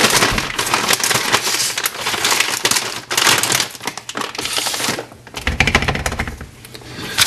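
Rapid clattering and tapping of a plastic scoop against a blender cup as whey protein powder is emptied in, with heavier knocks of the cup being handled near the end.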